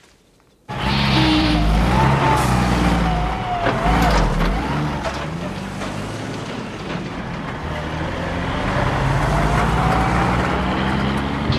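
Heavy tanker truck's engine running loud as it drives past, its pitch climbing and dropping several times as it works through the gears. It starts abruptly about a second in.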